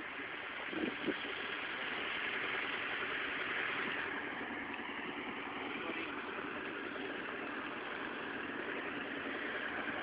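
An engine running steadily, with two or three short knocks about a second in.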